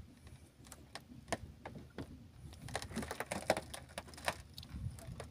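Irregular light clicks and ticks of nylon fishing line being pulled in by hand over the side of an outrigger boat, growing busier about halfway through.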